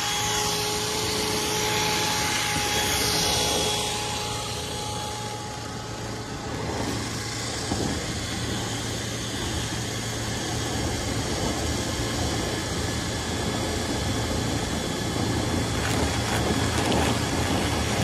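Cordless drill spinning a flexible dryer-vent brush rod inside the lint-clogged duct, a steady whir with the rod rattling in the pipe. A thin whine over it fades out within the first few seconds.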